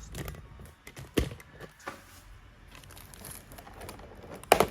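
Clear plastic packaging tray clicking and crinkling as a stuck action figure is worked loose from it, with a sharp knock about a second in and a louder sharp click near the end.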